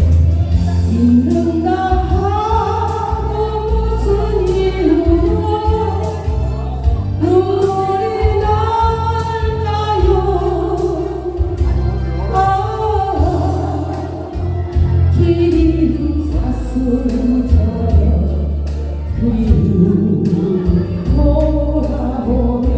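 A woman singing a Korean ballad with long held notes over a backing track with a steady beat.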